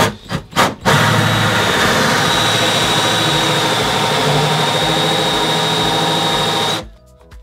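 Cordless drill with a hole saw cutting the tap hole through the kitchen worktop: a few short clicks, then the drill runs steadily under load with a high whine for about six seconds and stops suddenly.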